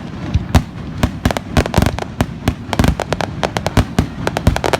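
A rapid, irregular series of sharp cracks and pops, several a second.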